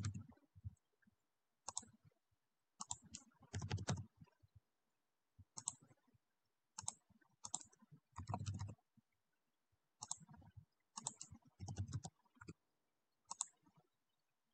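Computer keyboard typing and mouse clicks: short, faint clusters of key taps and clicks with pauses between them.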